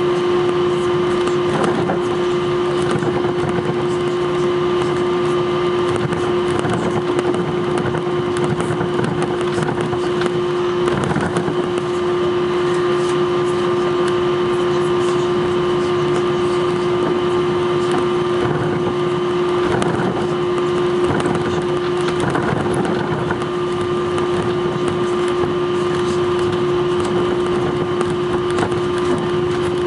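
Airbus A321 cabin while taxiing: a steady engine drone and rush of cabin air with a constant hum, heard from a window seat over the wing.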